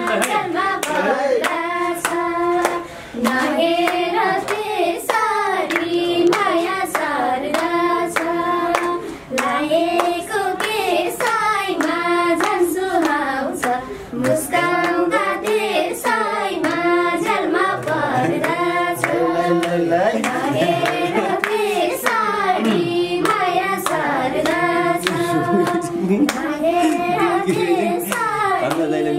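Nepali dohori folk song: a voice sings a melody of long held, bending notes over a steady percussive beat of sharp strokes, with brief breaks between phrases.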